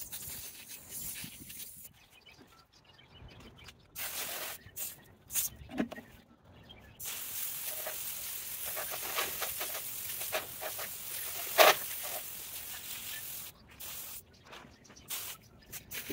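Garden hose pistol-grip spray nozzle spraying water: a few short squirts, then a steady jet hissing onto wet flagstones for several seconds, with one sharp knock partway through, before it turns to short squirts again near the end.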